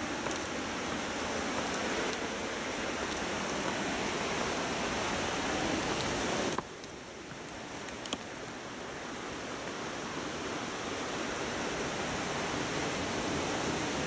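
Steady rush of Nunobiki Falls' water, slowly growing louder; it drops suddenly about six and a half seconds in, then builds again.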